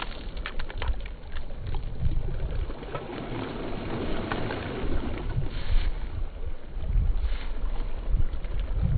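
Wind buffeting the microphone in gusts, with a thrown handful of beach shingle spattering into the water about four seconds in.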